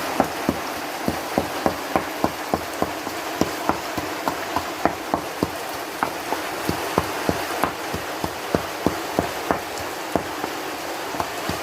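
Pestle pounding chili, sugar, salt and seasoning powder in a mortar, sharp knocks at about three a second, over the steady hiss of heavy rain.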